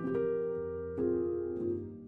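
Background instrumental music: held, ringing notes, with a new chord struck about a second in that fades away near the end.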